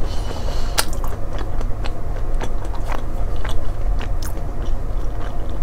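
Close-miked chewing of a date spread with salted butter and topped with almond, with scattered short wet mouth clicks.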